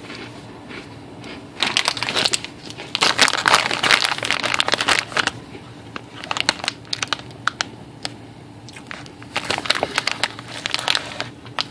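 Plastic snack bag crinkling as it is handled: a long bout of crinkling starting about two seconds in, then shorter bouts.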